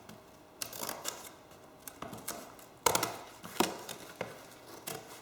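Cardboard from a small box being cut and handled: a series of irregular crunches and snaps, the sharpest about three seconds in.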